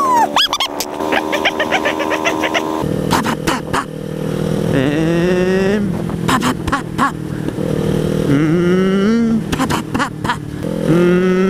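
Kawasaki Ninja 300's parallel-twin engine under way: a steady cruising note at first, then the note climbs three times, about five, eight and eleven seconds in, as the rider accelerates. Frequent brief rushes of wind noise come in over it.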